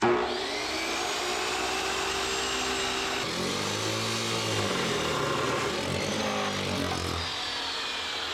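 Chop saw cutting through steel stock. It comes in abruptly and runs loud and steady, with the motor's pitch sagging in the middle of the cut and then recovering.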